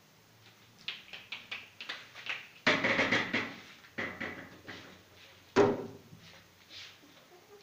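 Two puppies, a pug and an Old English Sheepdog, play-fighting on a tile floor spread with newspaper: a run of short, sudden scuffling sounds, loudest around three seconds in, with another sharp one near six seconds.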